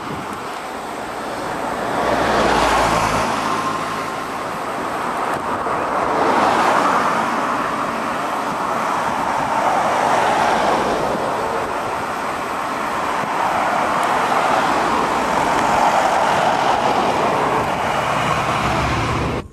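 Road traffic noise: vehicles passing one after another, the tyre and engine noise swelling and fading every few seconds.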